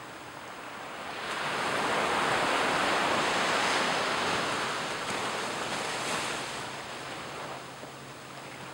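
A small wave breaking and washing up a sandy beach: the surf's hiss swells about a second in, peaks around three seconds, then fades away.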